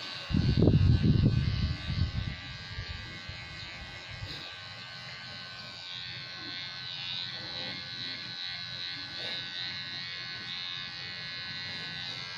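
Electric hair clipper buzzing steadily as it cuts hair. A loud low rumble covers it for about a second and a half, starting about half a second in.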